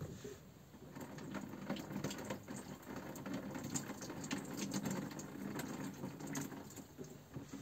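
Tap water running over potatoes being rinsed by hand in a small sink, with light knocks and clatter. It starts about a second in and stops shortly before the end.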